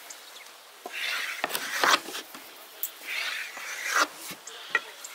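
Kitchen knife drawn through a thin rolled-out sheet of dough on a wooden board, cutting it into strips: two long scraping strokes about two seconds apart, each ending in a sharp tap of the blade on the wood.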